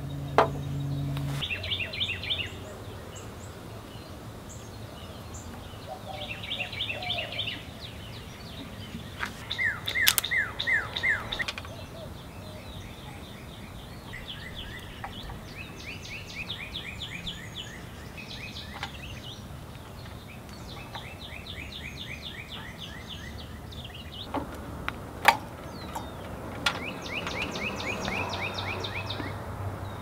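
Songbirds singing: about seven fast trilled phrases, each a quick run of short, evenly spaced notes, over a faint background hiss, with a few sharp clicks scattered through, the loudest near the end.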